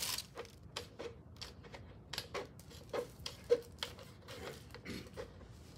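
Hand snips cutting through the rim of a thin black plastic prosthetic socket shell: a string of short, sharp snips at an irregular pace of about two a second.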